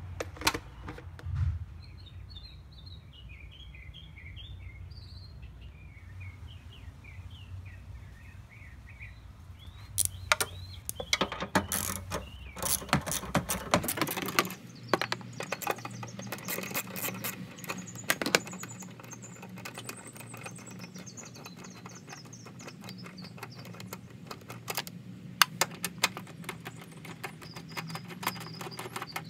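Irregular clicks, knocks and scrapes of a Honda Civic's plastic air-intake tube and airbox being handled and pulled apart by hand. Small birds chirp in quick runs of short calls during the first several seconds.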